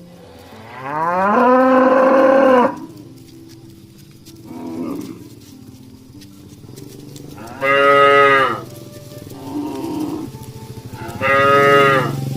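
Cattle mooing: three loud, long moos, the first sliding up in pitch as it begins, with two fainter, shorter calls between them.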